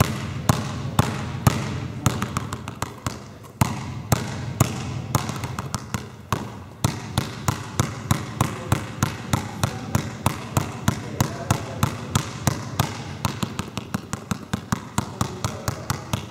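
Basketball dribbled hard on a sports-hall floor, each bounce a sharp smack with a short echo in the hall. About two bounces a second at first, quickening to around three a second from the middle on.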